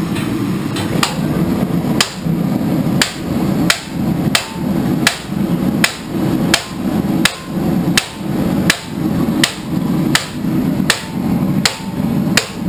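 Hammer blows on a part of the Jeep in a steady rhythm, about three strikes every two seconds, over a steady low rumble. The blows are driving out a part that is coming out slowly.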